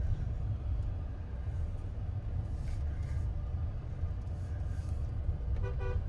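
Steady low rumble of a car moving slowly on a dirt drive, heard from inside the cabin. Near the end a car horn toots once, briefly, for about half a second.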